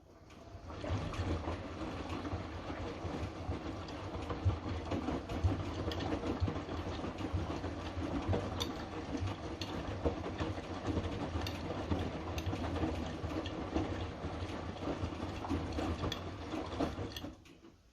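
Hotpoint washing machine drum turning during the mainwash: the motor runs steadily with scattered clicks and knocks from the tumbling load. It starts about a second in and stops just before the end, one stroke of the wash action before the drum pauses.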